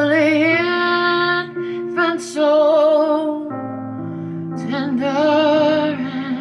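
A recorded song playing: a singer holds long notes with vibrato over piano accompaniment, with short pauses between phrases.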